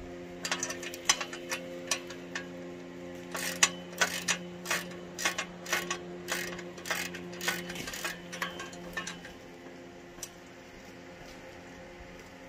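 Irregular sharp metallic clicks and clinks from hand tools and bolt hardware as a log splitter's steel work table is bolted on, some in quick clusters, stopping about nine seconds in. A faint steady hum runs underneath.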